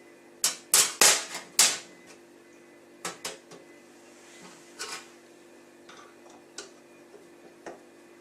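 Sharp clicks and knocks of tap parts being fitted back together by hand: a quick run of about five loud ones in the first two seconds, then a few scattered, fainter single clicks.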